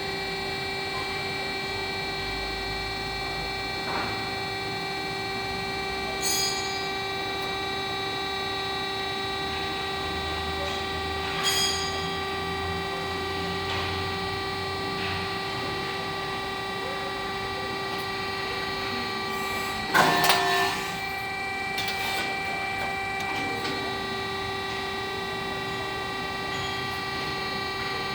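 A CNC press brake's machine hum: several fixed tones run steadily with no rise or fall. It is broken by a handful of short clunks, the loudest a little over two-thirds of the way through.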